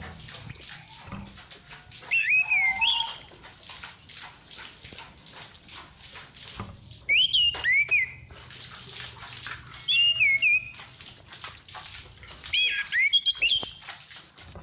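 Female orange-headed thrush calling three times, each time a sharp, high, falling whistle followed by a quick run of lower twisting notes. It is a lure call used to rouse male thrushes into singing.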